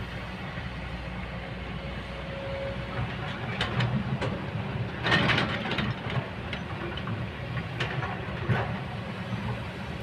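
Kobelco excavator's diesel engine running steadily, with several knocks and a louder clattering scrape about halfway through.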